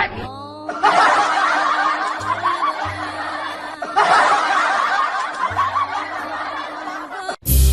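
Canned crowd laughter sound effect, many voices laughing together, played twice back to back over background music.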